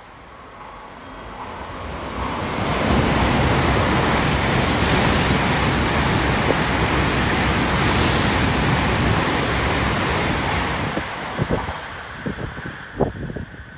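N700A Shinkansen train passing through a station at reduced speed under a 200 km/h limit. A rush of air and wheel noise swells about two seconds in and stays loud for several seconds, with two brief sharper hisses. It then fades, with gusty thumps on the microphone near the end.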